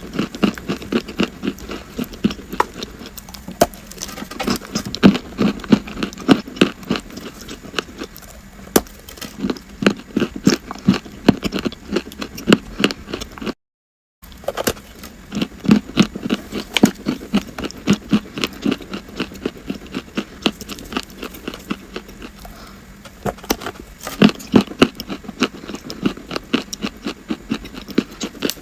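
Close-up crunching and chewing of crunchy chalk, a rapid run of crisp cracks and crackles, broken by a moment of silence about halfway through.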